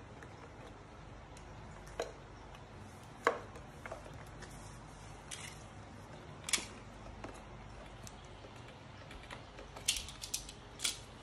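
Scattered sharp clicks and light taps, about ten at irregular intervals and loudest near the end, from hard plastic blender parts being handled and fitted; the blender motor is not running.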